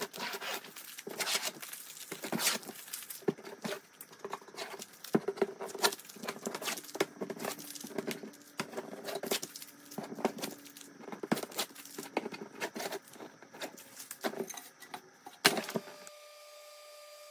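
Tape being peeled in strips off a thin wooden panel: irregular crackling and ripping, with light rubs and taps of hands on the wood. Near the end it gives way abruptly to a faint steady hum.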